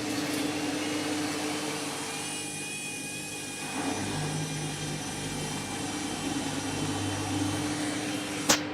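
Candy washing machine spinning its overloaded drum on the final spin: a steady motor and drum hum with several held low tones, and a sharp knock near the end.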